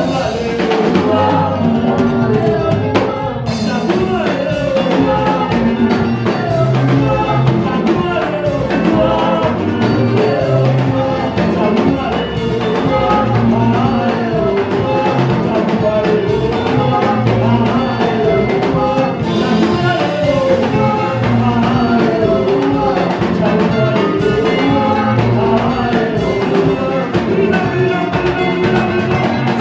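Worship band playing an upbeat song with a drum kit keeping a steady beat, with singing over it.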